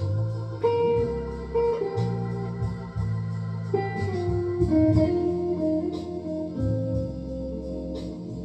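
Solid-body electric guitar played through an amplifier: a slow melodic line of held, sustained notes stepping from pitch to pitch, with low notes under them.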